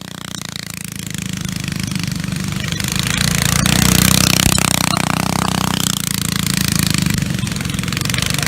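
Small engine running, a rapid pulsing drone that grows louder over the first few seconds and then holds steady.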